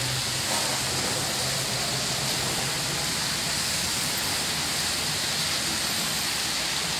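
Steady hiss of heavy rain falling. A low engine hum from passing traffic sits under it and fades after about three seconds.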